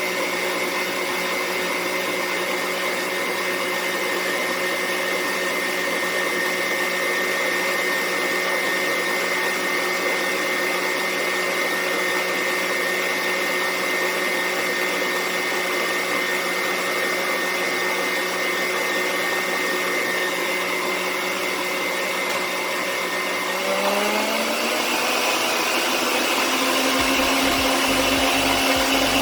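Electric stand mixer beating boiled icing (egg-white meringue with sugar syrup) at high speed: a steady motor whine that glides up in pitch about 24 seconds in and then holds.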